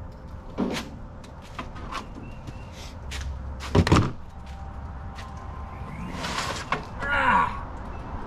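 Plastic parts bins and their contents clattering as they are moved about on the shelves of a service truck's side compartment. Scattered knocks and scrapes, the loudest a sharp double knock about four seconds in.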